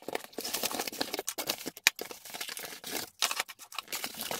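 Cardboard box being opened and clear plastic bags of parts rustling and crinkling as they are handled and set down, with scattered sharp taps and clicks.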